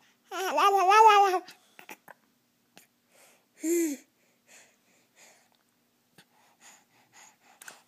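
A person's voice making wordless noises: a wavering, held vocal sound lasting about a second near the start, a short one a little before halfway, then faint breaths and mouth clicks.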